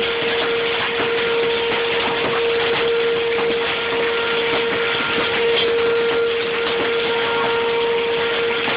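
Outdoor tornado warning siren holding one steady tone, with heavy rain and hail hitting hard surfaces throughout.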